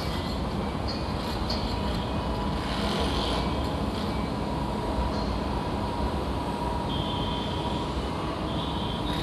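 Construction site ambience: a steady low rumble of heavy machinery, with a faint steady whine and brief high-pitched squeals about three seconds in and again near the end.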